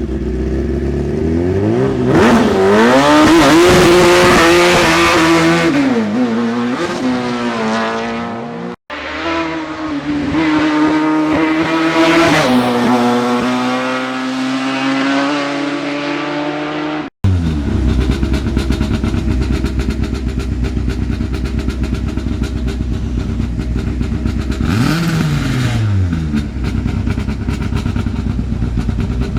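Hill-climb racing cars' engines at full throttle, the pitch climbing through each gear and dropping at every shift, in two separate runs cut abruptly one after the other. A lower, steadier engine follows, with one brief rev up and back down about 25 s in.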